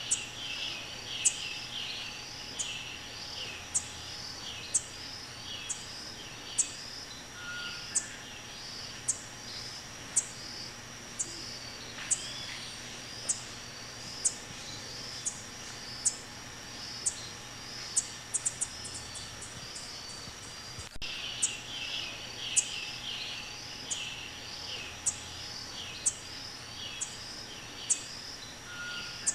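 Masked tanager giving sharp, high, thin call notes about once a second, with a quick run of them a little past halfway. A steady high insect drone and other chirping run beneath.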